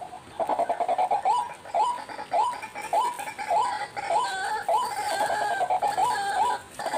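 White-breasted waterhen calling, a string of repeated hooked "ruak" notes about two a second that crowd together from about four seconds in, with a second, higher voice overlapping.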